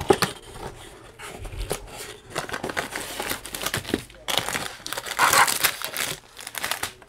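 Plastic packaging crinkling in irregular bursts, with light clicks of a cardboard box, as a diamond painting kit is unpacked: the canvas in its clear plastic sleeve and the bagged drills are handled and pulled out of the box.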